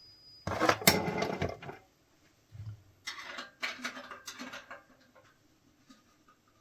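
Hand tools and bolt hardware being handled on the motorcycle: a loud burst of metallic clattering about half a second in, then lighter rattling and clicks, fading to faint ticks near the end.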